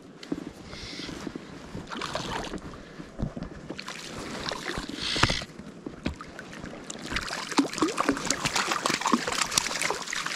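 Lake water splashing as a hooked cutthroat trout is brought in and landed. There are separate splashes at about two and five seconds in, then busy splashing and sloshing over the last few seconds as the fish reaches hand.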